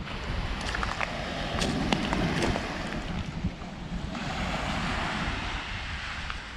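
Wind buffeting the microphone with a steady low rumble, over which footsteps crunch on a shore covered in loose seashells for the first couple of seconds. From about four seconds in, the hiss of small waves washing onto the shore comes up.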